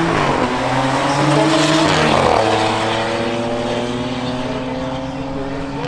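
Audi SQ5s accelerating hard from a drag-strip launch, engine pitch rising, with a gear change about two seconds in, then a steadier engine note that slowly fades as the cars pull away down the strip.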